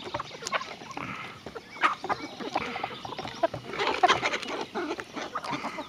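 Barred hen pecking corn off bare wooden boards: irregular quick beak taps, with a few soft clucks among them.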